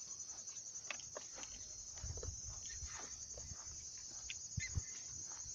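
Steady, high-pitched insect chirring, with scattered light rustles and clicks and two low thumps near the end.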